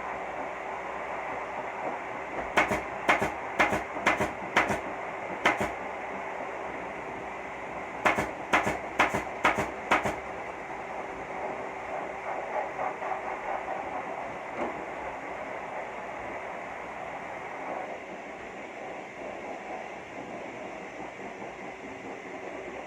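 Two quick runs of sharp taps or clicks, five or six strikes each, about half a second apart, over a steady background hum.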